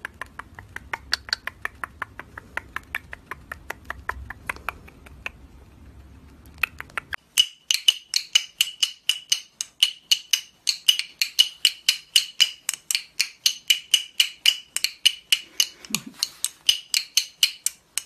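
Faint rapid clicking over a low hum as a cockatiel nibbles a person's lips. About seven seconds in, a small pellet (rattle) drum starts sounding: a fast, even run of sharp, ringing knocks, about four or five a second, as its beads strike the drum head.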